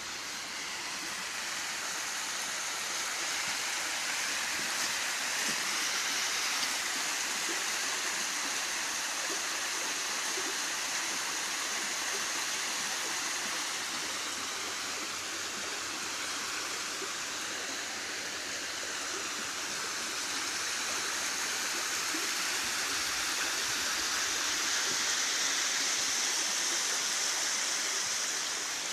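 Steady rushing of running water, like a stream flowing over rocks, holding an even level throughout.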